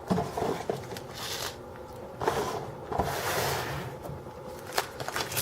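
Packaging of a box of trading cards being handled and opened: several short rustling, scraping bursts of cardboard and plastic wrap, with a few light clicks.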